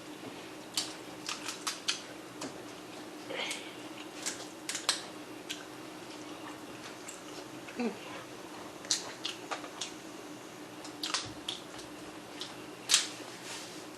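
Mouth and food-handling sounds of eating a seafood boil of shrimp and clams: scattered short clicks, crackles and smacks over a steady low hum.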